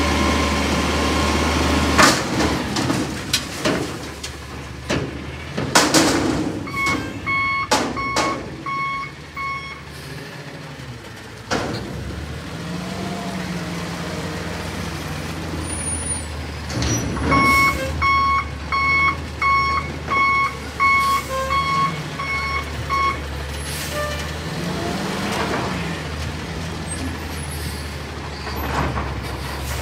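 Natural-gas Peterbilt 320 front-loader garbage truck working a dumpster: the engine runs and rises in pitch as the hydraulic arms move, with sharp metal clanks and air-brake hisses. A reversing alarm beeps in two runs, about five beeps a few seconds in and about nine more past the middle.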